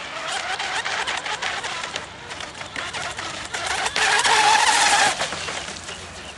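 Sigma Evo RC speedboat's brushless electric motor whining at full speed over the hiss and slapping of its hull on the chop. It grows loudest about four seconds in as the boat passes close, then falls away quickly.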